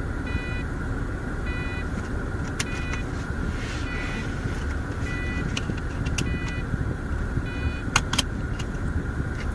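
Car cabin noise while driving: a steady low road and engine rumble. A short electronic beep repeats about every 1.2 seconds, and a few sharp clicks come through, two close together near the end.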